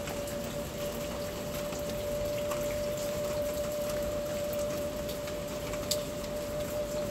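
Makita MLT100 table saw motor running free with no wood being cut, a steady even hum, over a patter of rain. One sharp tick comes near the end.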